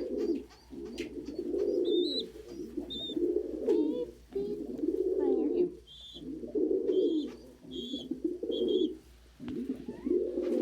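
A loft of domestic pigeons cooing, several birds at once in overlapping phrases with short gaps, the courtship cooing of males showing off. Short high squeaks cut in a few times, several in a row in the second half.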